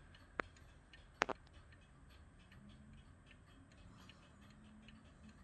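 Eluxa Boulle clock's Swiss eight-day pendulum movement ticking faintly and evenly, with two sharper, louder clicks early on, about a second apart.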